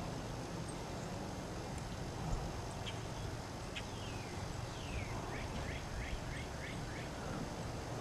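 A songbird singing a phrase of two long falling whistles followed by a quick run of about six short falling notes, starting about four seconds in, over a steady low background rumble.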